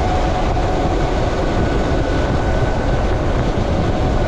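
Steady wind rush over the microphone while riding a Harley-Davidson LiveWire electric motorcycle at about 40 mph, with a thin steady whine from its electric motor under the noise.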